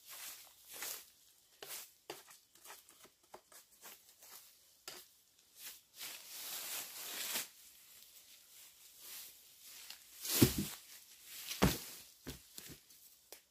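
Dry grass and leaves rustling and crackling as a weathered wooden log is dragged over the ground and trampled underfoot, with two heavy thuds about ten and eleven and a half seconds in.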